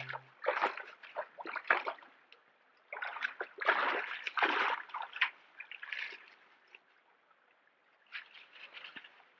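Black bear cub wading and splashing in a shallow creek: several bursts of splashing in the first half, a short one in the middle and a last one near the end, with a faint trickle of the stream between.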